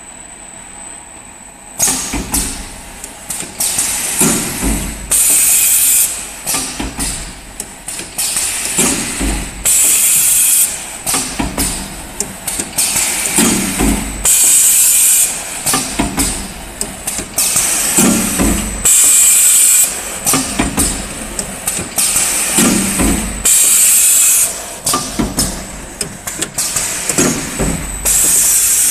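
YS-ZB-3 automatic PE-film shrink-wrapping machine running through its wrapping cycle. Loud hisses of compressed air, about a second long, come every four to five seconds, with clicks and clanks of the mechanism between them.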